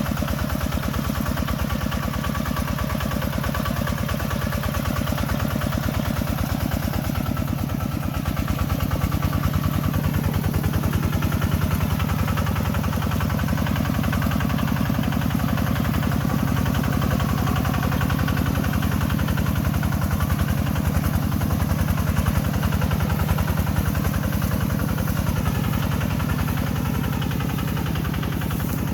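Tractor engine running with a rapid, even chugging, getting somewhat louder about eight seconds in.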